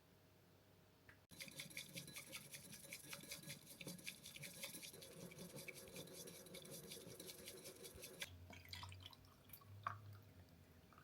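Quick, repeated scratching strokes that run for about seven seconds and stop suddenly, followed by a few light clicks and knocks.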